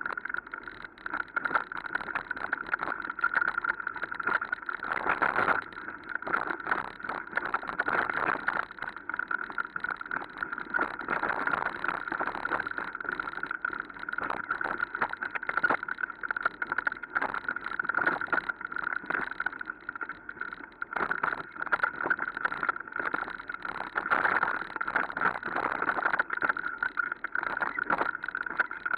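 Mountain bike ridden fast down a bumpy forest dirt trail: continuous rattling and clatter of the bike over the rough ground, over a steady high-pitched buzz.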